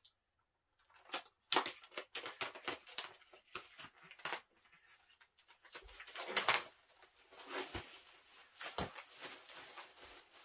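Plastic shrink-wrap being torn and peeled off a vinyl LP jacket: irregular crinkling and crackling, with a louder crackle about six and a half seconds in.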